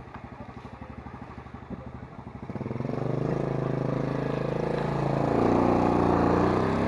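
Small motorcycle engine running with an even putter, then about two and a half seconds in it is opened up and runs much louder as the bike gets under way.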